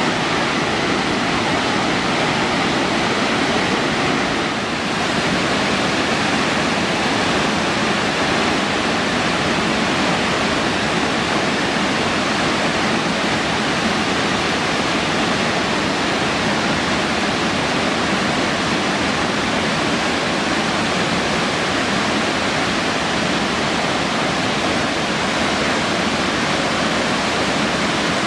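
Burney Falls waterfall, a steady, loud rush of water pouring down the cliff into the pool below, with a brief dip in level about five seconds in.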